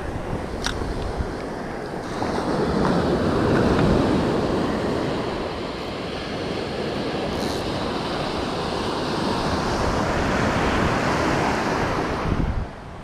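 Surf breaking and washing up the beach, swelling louder as waves run in, with wind buffeting the microphone. A single light click sounds under a second in.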